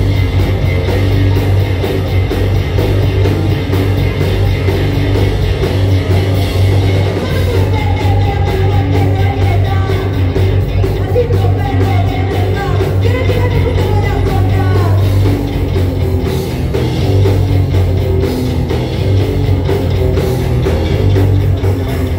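Live rock band playing: distorted electric guitar, bass guitar and drum kit, with a woman singing lead over them.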